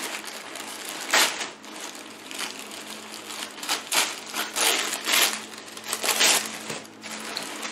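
Tissue packing paper rustling and crinkling as it is pulled and unwrapped by hand in a cardboard box, in about half a dozen separate handfuls.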